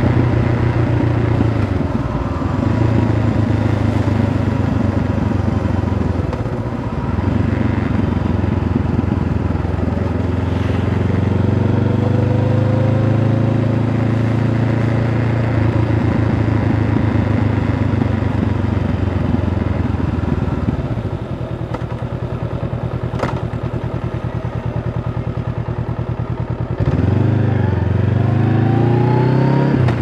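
Honda CB500F's parallel-twin engine on its stock exhaust, heard from on board while riding at a steady pace. About two-thirds of the way in the throttle is eased off for several seconds and the engine runs quieter. Near the end it pulls hard again, revving up in a rising pitch.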